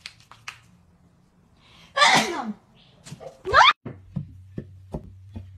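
Two loud, short sneeze-like bursts about a second and a half apart, the second with a quick rising pitch, among soft clicks and taps.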